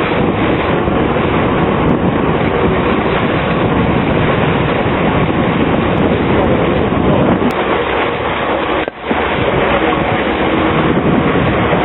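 Steady rushing noise of wind on the microphone and water streaming past the bow of a moving catamaran, with a brief dip about nine seconds in.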